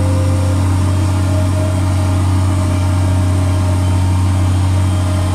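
Ford TW-35 tractor's six-cylinder diesel engine running steadily while pulling a disk through the field, heard from inside the cab as a constant low drone.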